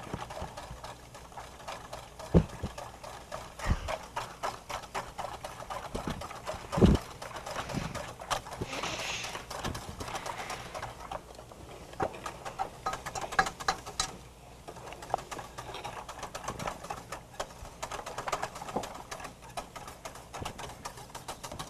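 Metal spoon clattering and scraping against the inside of a stainless steel pot in quick, irregular knocks, with a few heavier thumps, as gelatin is stirred hard into hot water to dissolve it.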